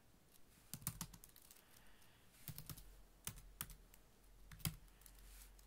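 Faint typing on a computer keyboard: scattered, irregular key taps as a terminal command is keyed in.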